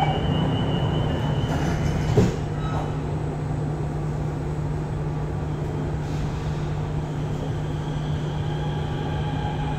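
Inside a Kawasaki-CRRC Qingdao Sifang CT251 metro car standing at a platform: a steady hum from the car, with one sharp thump about two seconds in as the sliding doors shut. Near the end a rising whine begins as the train starts to pull away.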